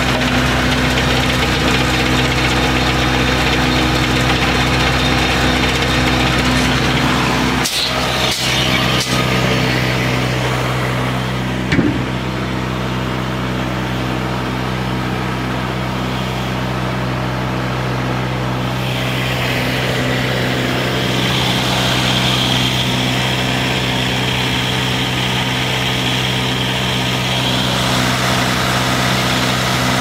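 Morgan circular sawmill running steadily: its power unit drones at a constant speed with the saw blade turning. There are a few sharp knocks about eight seconds in and a short loud bang near twelve seconds, and a high whine joins in for several seconds in the second half.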